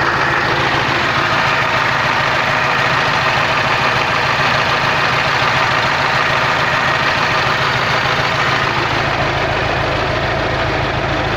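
KamAZ truck's V8 diesel engine idling steadily with a knock from its pistons: at least two scuffed pistons, worn loose on their skirts, knocking in their bores.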